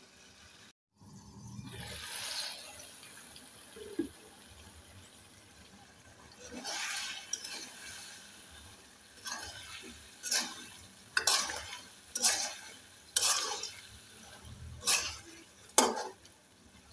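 Spatula stirring and scraping chicken pieces through thick curry gravy in a cooking pan. The strokes come about once a second in the second half and grow louder toward the end.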